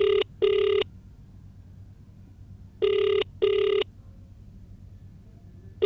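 Telephone ringback tone of an outgoing call: a double ring, a pair of short tones, about every three seconds, over a faint low hum. The call is ringing unanswered at the other end.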